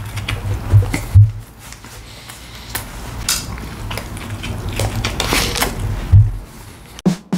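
Close-miked eating of McChicken sandwiches: chewing, with clicks and crinkles from handling the food and its packaging, and a few dull bumps, the loudest about a second in and about six seconds in.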